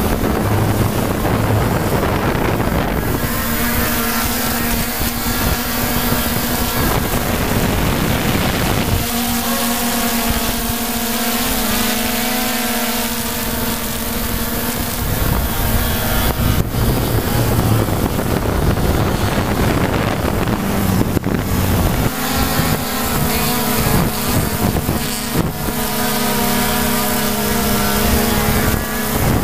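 Steady hum of a camera drone's motors and propellers, its pitch shifting slightly and its upper tones fading out and back a few times, with wind buffeting the microphone.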